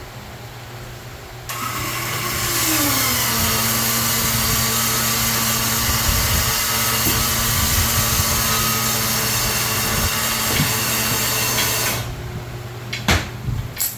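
A mower lift's motor running as it raises a zero-turn mower: the pitch rises as it starts, holds steady for about ten seconds, then cuts off, followed by a few clunks.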